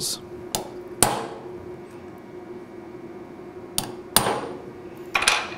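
A hammer tapping a steel punch against a gearbox drive shaft: about five sharp metallic strikes, each with a short ring, spaced unevenly. The strikes are punch-marking the shaft where new roll-pin holes will be drilled.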